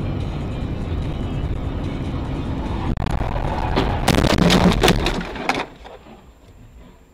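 Car crash heard from inside the car: steady road and engine noise, then about four seconds in a rapid series of loud impacts and crunching as the car goes off the road. After about a second and a half the noise dies down sharply.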